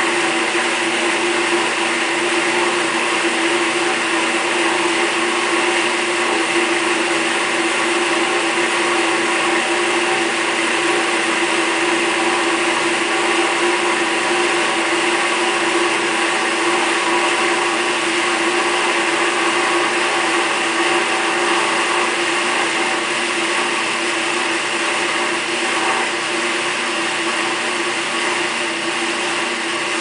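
1949 GE RA-949 portable dishwasher running its wash-rinse cycle: a steady motor hum with a rush of water churning inside the tub. It eases slightly over the last few seconds.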